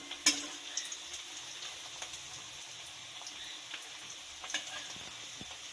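Fish-roe fritters deep-frying in hot mustard oil: a steady sizzle with scattered small crackles and pops, and one sharp click near the start.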